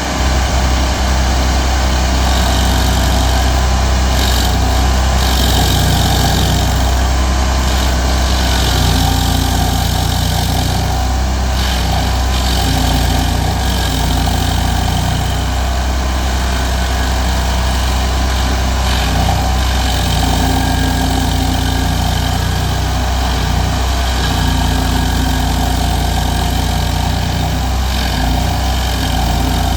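Stump grinder engine running steadily, its cutter wheel grinding into a tree stump with bursts of harsher grinding noise that come and go.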